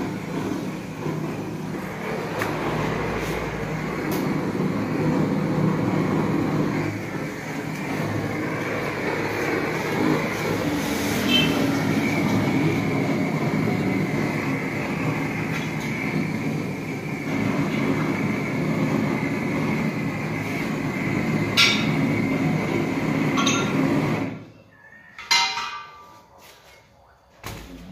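Gas torch burning with a steady rushing noise as its flame heats a dented wheel rim to straighten it. The noise cuts off suddenly near the end as the torch is shut off, followed by a few light knocks.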